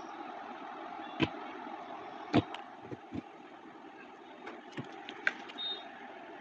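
Slime being handled: a string of sharp pops and clicks, the loudest about one and two and a half seconds in, with a cluster of smaller ones near the end, over a steady background noise.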